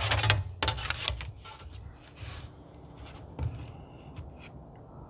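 Wooden moulding strips and a steel rule being shifted and set down on a wooden workbench: a few knocks and clicks, the heaviest near the start, and a brief pencil scratch of a marking line about two seconds in.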